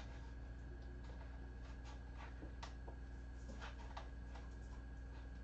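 Faint, irregular scratches and light clicks from kittens shifting about on a carpeted cat tree, over a steady low electrical hum.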